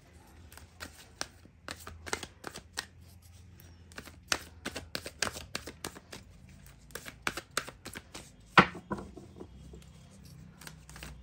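A deck of oracle cards being shuffled by hand: a run of irregular quick flicks and taps of the cards, with one sharper snap about two-thirds of the way through.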